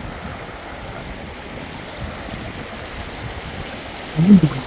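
Mountain stream running over stones, a steady rush of water. A short voice sound comes in near the end.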